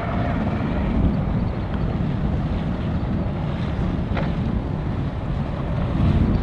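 Wind buffeting the microphone, a steady low rumble with the sound of boats and water faintly under it, and a brief sharp high sound about four seconds in.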